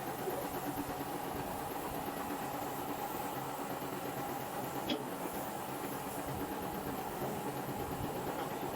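A steady machine hum with a constant tone, broken by one sharp click about five seconds in.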